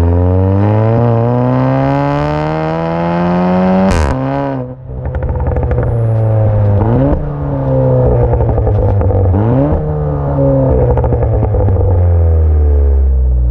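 Stage 2 tuned Porsche Macan's 2.0-litre EA888 turbo four-cylinder heard at the tailpipes through its Fi Exhaust, accelerating hard: the engine note climbs and drops back at upshifts about four, seven and ten seconds in. A sharp crack comes with the first shift.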